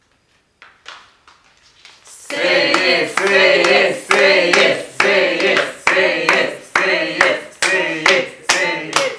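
A group of people clapping in time, about two claps a second, with several voices singing along. A few scattered claps come first, and the steady clapping and singing start together about two seconds in.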